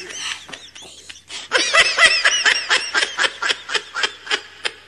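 High-pitched laughter in a quick string of short bursts, about four or five a second, getting louder about a second and a half in.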